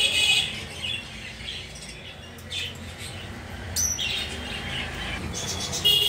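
Small caged birds chirping and twittering in short high calls, busiest at the start and again near the end.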